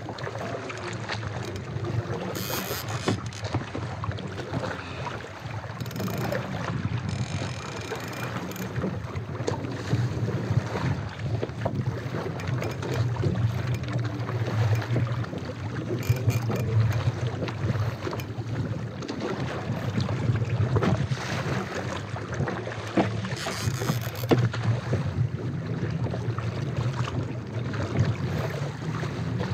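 Wind buffeting a small action-camera microphone and choppy water slapping a fishing kayak's hull, steady throughout, with a low hum underneath and scattered small knocks and splashes.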